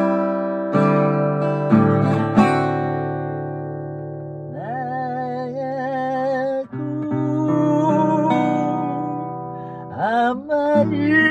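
Acoustic guitar playing an intro: a few firm strummed chords in the first two and a half seconds, then chords left ringing. From about four and a half seconds in, a wordless singing voice with vibrato comes in over the guitar, sliding up into a new phrase near the end.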